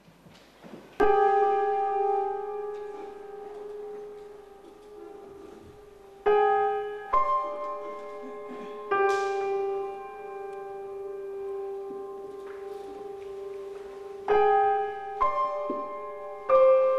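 Slow solo piano music: single notes and chords struck several seconds apart and left to ring out, starting about a second in after a near-silent moment.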